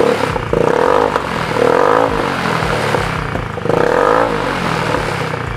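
Stock single-cylinder four-stroke engine of a carbureted Honda Beat scooter revved several times through a Best3 aftermarket slip-on exhaust. The pitch rises and falls with each blip of the throttle.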